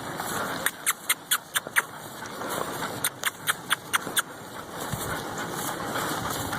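Two quick runs of short, sharp clicks or squeaks, about six in each, with a pause of about a second between them, over a steady background hiss.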